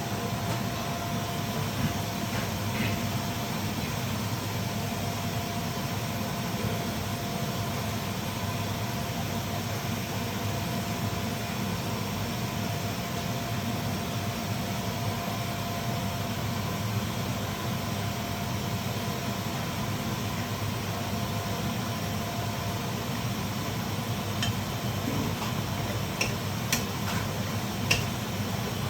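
A steady mechanical hum with a faint high whine, and a few light clicks near the end.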